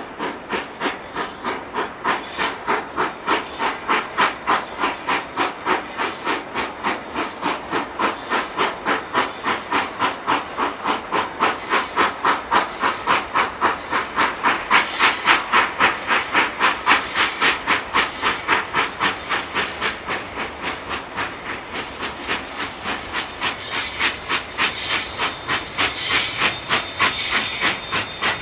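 K-28 class 2-8-2 Mikado narrow-gauge steam locomotive No. 473 working along with an even exhaust chuff of about two to three beats a second, quickening slightly and loudest toward the middle, over a steady hiss of steam.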